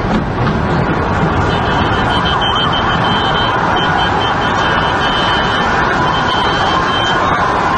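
Emergency-vehicle sirens wailing over a dense, steady wash of city street noise.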